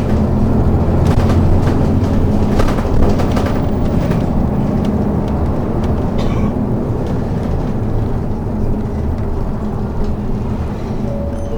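Inside a city bus under way: the engine running with a steady low rumble and road noise, and clicks and rattles from the body and fittings in the first few seconds.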